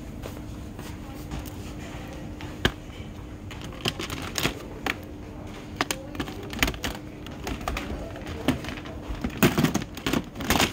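Irregular sharp clicks and light knocks of hard plastic as stacked plastic baskets are handled, coming thicker near the end, over a faint steady hum.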